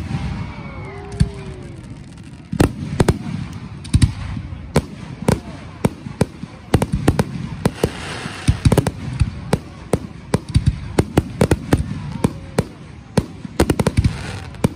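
Aerial firework shells bursting at close range, a dense string of sharp bangs in quick succession, with a spell of crackle about eight seconds in.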